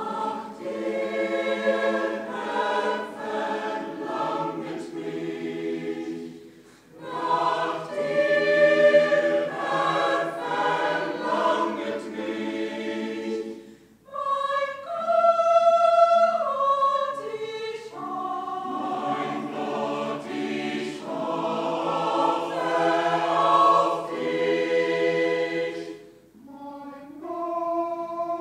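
A mixed choir of men's and women's voices singing a hymn in sustained, overlapping parts. The phrases last several seconds, with brief breaks about 7, 14 and 26 seconds in.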